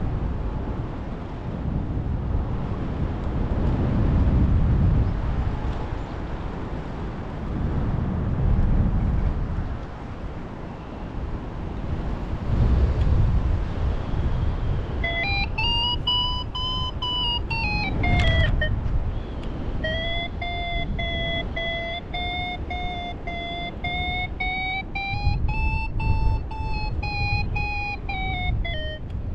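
Wind buffeting the microphone in gusts. About halfway through, a paraglider variometer's electronic tone joins it: it swoops up and back down in pitch, breaks off briefly, then comes back as a steady tone that wavers slightly in pitch.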